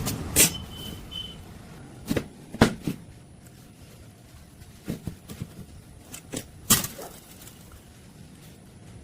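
Irregular sharp knocks and clicks from metal pieces being handled, about eight spread unevenly, the loudest two near the start and about two and a half seconds in.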